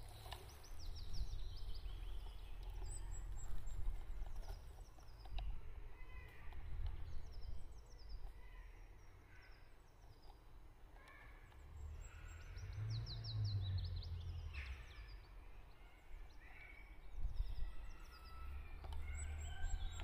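Several songbirds singing, with many short high chirps and quick trills scattered throughout, over a low steady rumble.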